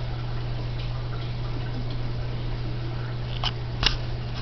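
Steady low hum and watery hiss of a saltwater aquarium's pump and wet/dry filter, with two sharp clicks close together near the end.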